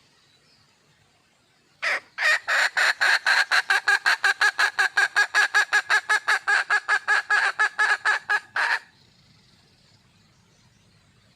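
Female red junglefowl (wild hen) calling for a mate: a fast, even run of short clucking notes, about six a second, starting about two seconds in and stopping abruptly after about seven seconds.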